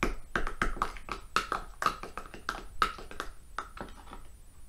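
Spoon clicking and tapping against the sides of a small plastic cup while stirring sticky slime, a quick irregular run of about four taps a second that grows fainter near the end.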